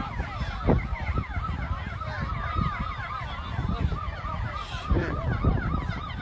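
Several emergency-vehicle sirens yelping at once: quick rising-and-falling tones that overlap, over a steady low rumble.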